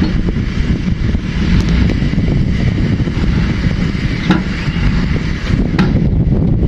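Heavy diesel earthmoving machinery running in a steady, rough rumble, with a couple of sharp clanks a little after the middle.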